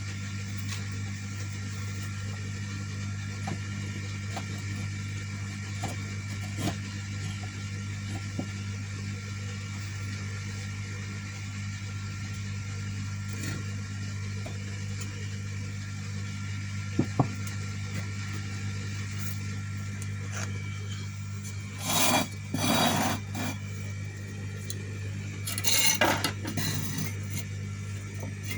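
Steady low electric hum, with scattered small ticks. A sharp double click comes about 17 seconds in, and two short bursts of scraping and clinking come about 22 and 26 seconds in.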